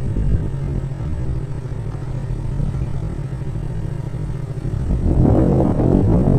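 Steady low rumble of a moving vehicle, with wind buffeting the microphone, swelling louder about five seconds in.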